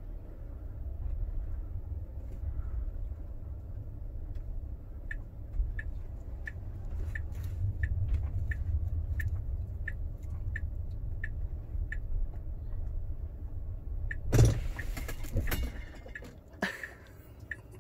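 Low, steady road rumble inside the cabin of a moving Tesla electric car. From about five seconds in, the turn-signal indicator ticks steadily, a few ticks a second, for about nine seconds. A sharp thump comes near the end, followed by a few clicks and rustles.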